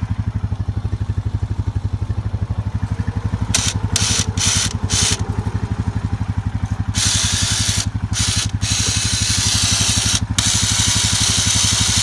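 Engine idling steadily with an even low pulse. From about three and a half seconds in, a hissing rush starts and stops in a few short bursts, then runs on without a break from about seven seconds in.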